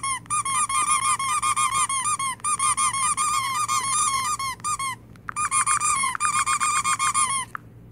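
Rubber-duck squeak keypress sounds from a phone keyboard app, played through the phone's speaker as keys are tapped quickly, several squeaks a second. The squeaks come in two runs with a short pause about five seconds in.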